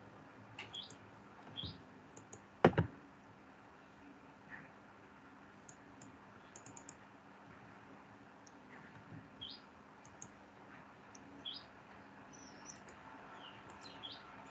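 Computer mouse clicking: a sharp double click about three seconds in and a few fainter clicks, over quiet room noise with small birds chirping faintly now and then.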